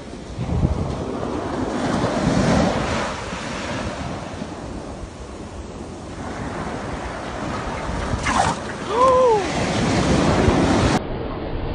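Small waves washing up onto a sandy beach, with wind buffeting the microphone. About nine seconds in there is a short call that rises and then falls in pitch.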